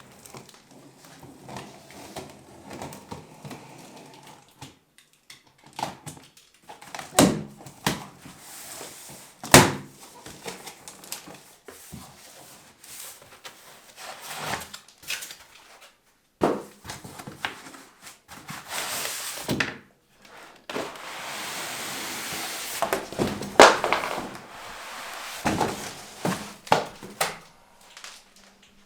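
Cardboard box and packaging being handled and opened, with scattered knocks and thuds. There are longer stretches of rustling in the second half.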